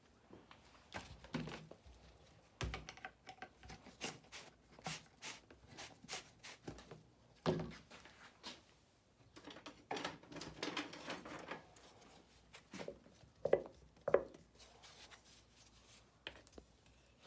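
Scattered clicks, knocks and rustling as small objects are handled and set down on a work surface, with a stretch of rustling about ten seconds in and two sharper knocks near the end.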